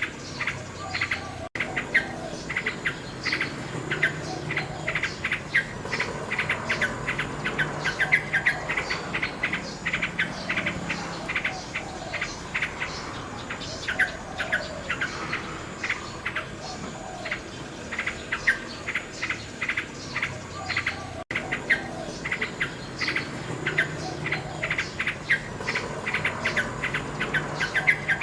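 Nightingale singing: fast runs of repeated notes and trills, with crickets chirping steadily behind. The sound drops out for an instant twice.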